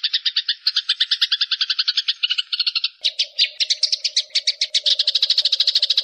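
Walang kecek (a singing grasshopper/bush-cricket used as a master sound) calling: a fast, even train of dry pulses, about ten a second. About halfway through it changes to a faster, denser pulse train over a steady low hum.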